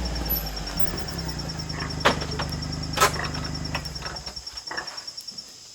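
Gator utility vehicle's engine running low, then winding down and stopping about four seconds in, with two sharp knocks a second apart about two seconds in.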